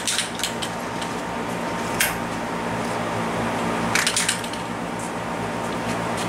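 A steady background hum with a few sharp clicks: one about two seconds in and a quick cluster about four seconds in, as a steel door is unlatched and swung open.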